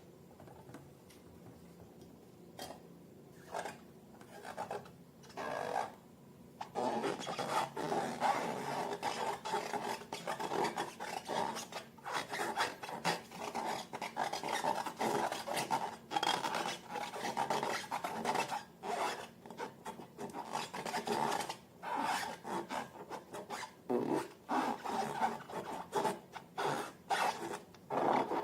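Rubbing and scraping from hands working slime and balloons: a few short scrapes, then about a quarter of the way in a continuous run of uneven rubbing strokes.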